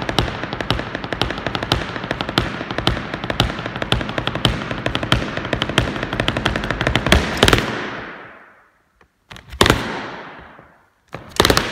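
Rapid stamping of heeled leather boots on a wooden dance board, many sharp heel and toe strikes a second, in a large echoing hall. The stamping stops about two-thirds of the way through and the echo dies away, then one single stamp and, near the end, another quick pair of stamps, each ringing on in the hall.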